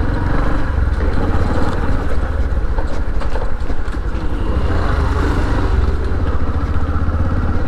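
Bajaj Platina 110 H-Gear motorcycle's single-cylinder four-stroke engine running steadily while riding along a street, heard from the rider's seat.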